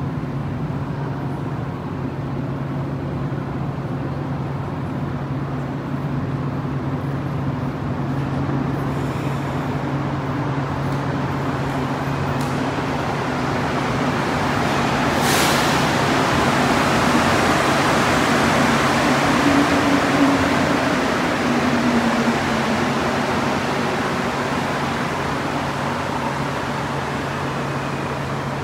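Rubber-tyred Montreal metro train (AZUR) pulling out of the platform, its running noise building to a loud rush about halfway through and then easing as it leaves, over a steady low hum. A brief sharp hiss cuts through near the loudest part.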